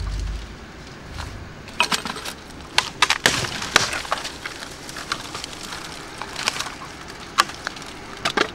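Dry twigs and leaf litter crackling and snapping as they are stepped on and handled. From about two seconds in it is a rapid, irregular run of sharp cracks.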